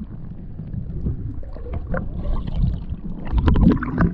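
Wind rumbling on the microphone and handling noise with splashy water while a freshly caught carp is held. There are scattered knocks, loudest about three and a half seconds in.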